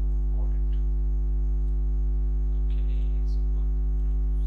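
Steady, low electrical mains hum with a buzz to it, unchanging throughout.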